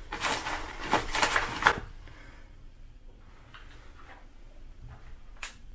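Rustling of paper-wrapped hotel amenity packets as a hand sorts through them in a tray, for about the first two seconds. It then goes quiet, with a single sharp click near the end.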